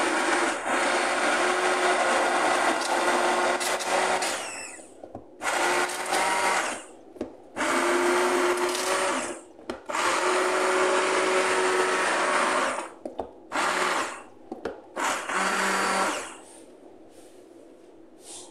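Electric stick blender puréeing a thick cooked sauce in a pan, its motor running in several runs of a few seconds with short stops between, ending in two brief bursts and switched off about sixteen seconds in.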